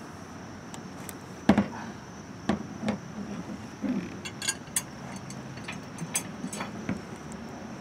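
Metal bull-bar mounting bracket knocking and clinking against the underside of a pickup's front end as it is fitted by hand: a string of sharp knocks, the loudest about one and a half seconds in.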